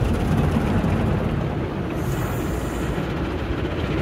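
Automatic tunnel car wash heard from inside the car's cabin: water and foam sprayed onto the windows and body with the wash machinery running. A steady rushing noise with a deep rumble, and a brief extra hiss about two seconds in.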